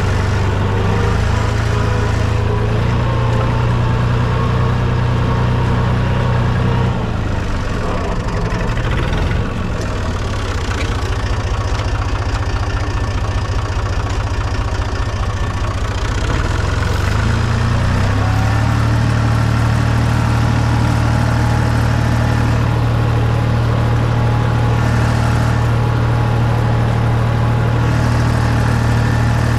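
Fiat Someca 500 tractor engine running during ploughing. About seven seconds in, the engine speed drops and it runs rougher for about ten seconds. It then picks up again with a rising pitch and runs steady.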